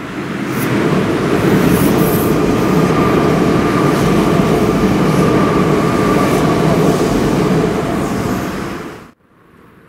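Meitetsu electric commuter train passing slowly over an iron railway bridge, a loud steady rumble with a faint held tone through the middle. It cuts off suddenly about nine seconds in.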